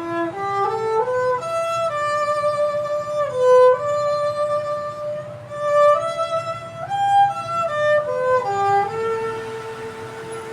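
Solo bowed string instrument playing a slow melody: a short rising run of notes, then long held notes joined by slides, settling into one long sustained note near the end.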